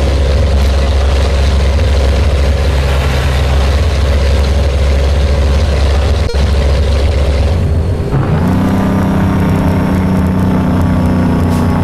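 Scania truck's diesel engine running under load with a steady low drone; about eight seconds in the engine note changes and settles into a higher, steady pitch.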